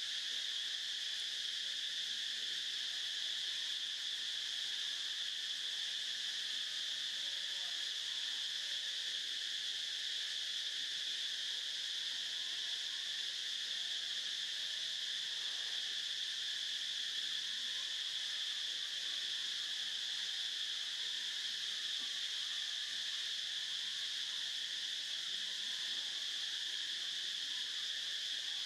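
Steady chorus of insects, a constant high-pitched drone that never pauses.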